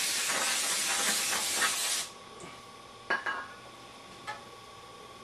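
Aerosol spray can spraying in one long, steady hiss that cuts off sharply about two seconds in. A few light knocks follow.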